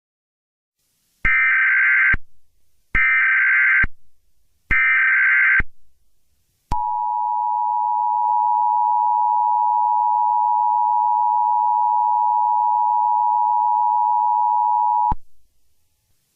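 Emergency Alert System header: three short bursts of SAME digital data tones starting about a second in. They are followed by the two-tone EAS attention signal, a steady dual tone held for about eight seconds that cuts off abruptly.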